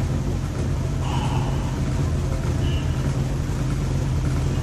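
Steady low electric-motor hum that keeps the same pitch and level throughout.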